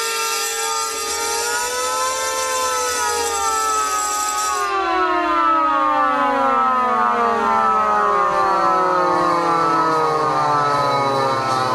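A siren sounding with electric alarm bells ringing over it. A little under five seconds in the bells cut off, and the siren winds down, its pitch falling steadily.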